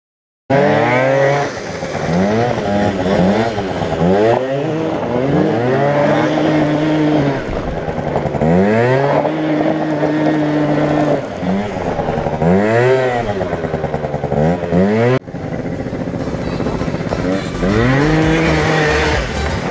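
Two-stroke Yamaha Aerox scooter engine, a Minarelli with a 70cc Malossi kit, revving hard while being ridden, its pitch climbing and falling every second or two with a few spells held high. It starts abruptly about half a second in and drops out briefly about 15 seconds in.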